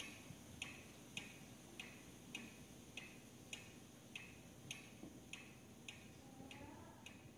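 Faint, evenly spaced ticks, a little under two a second, steady like a clock.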